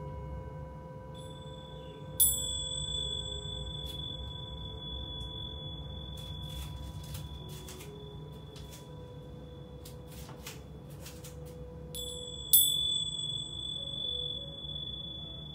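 A small handheld metal chime is struck twice, about two seconds in and again about twelve seconds in. Each strike rings out in a long, high, bright tone. Under it, the lower tone of the metal singing bowl resting on the back keeps ringing and fades.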